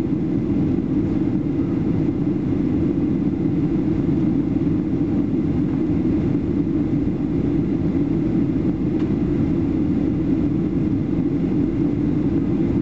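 Steady, low cabin roar of a Boeing 737-800 in descent, the rush of airflow and its CFM56-7B jet engines heard from inside the passenger cabin.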